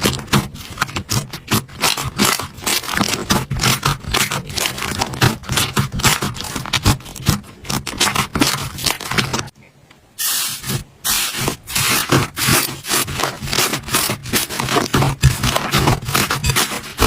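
Slime being squeezed and worked by hands, making a dense run of fine crackling and clicking, with a brief pause a little over halfway through.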